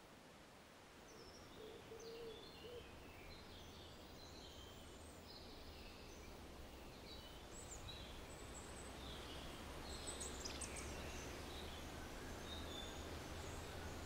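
Faint outdoor ambience of small birds chirping here and there over a low steady hum, slowly growing louder.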